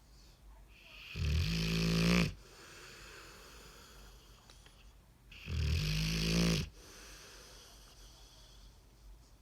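Dog snoring: two loud snores about four seconds apart, each lasting about a second.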